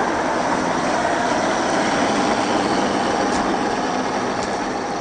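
A 1/10-scale RC off-road truck's electric motor and gear drivetrain running steadily with its tyres working over the ground, easing off slightly near the end.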